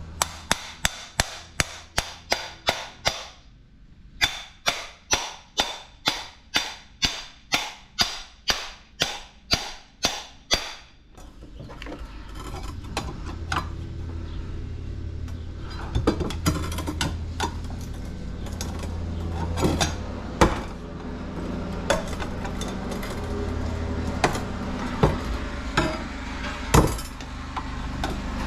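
A hammer repeatedly striking the metal housing of a ceiling fan motor, about three blows a second with a brief pause near the start, to knock the stuck motor apart. The hammering stops about eleven seconds in, giving way to scraping and scattered clicks of a tool prying at the motor over a low hum.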